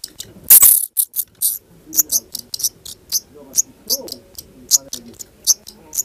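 Black redstart calls: short, sharp, high-pitched notes repeated about three times a second, with a brief loud rustling burst about half a second in.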